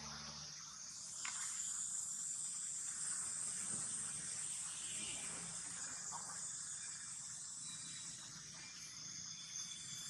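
Steady high-pitched insect chorus, with a couple of faint clicks.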